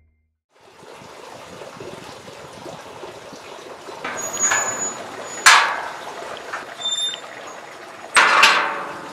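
Wrought-iron gate being worked: a hinge squeaking about four and a half seconds in, then two loud metal clanks about a second and three seconds later, the second one ringing on briefly, over a steady background hiss.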